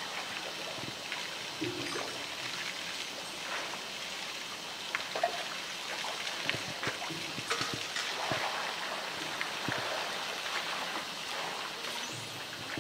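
Pool water sloshing and trickling around a swimming polar bear as it mouths a floating blue plastic tank, with many small splashes and drips.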